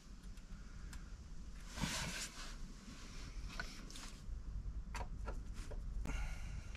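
Faint handling noise from working on car-audio wiring: scattered small clicks and a brief rustle about two seconds in, over a steady low hum.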